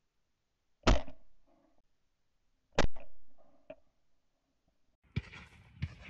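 Two shotgun shots about two seconds apart, each sharp and loud with a short decaying tail, fired with steel-shot cartridges. Two smaller sharp knocks follow near the end.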